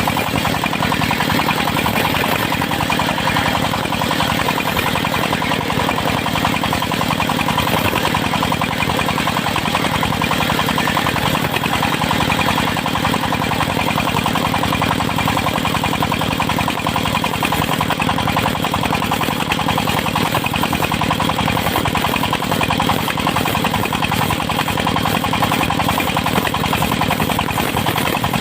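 Diesel engine of a circular-saw sawmill running steadily at a constant pace, with a fast, even knocking beat.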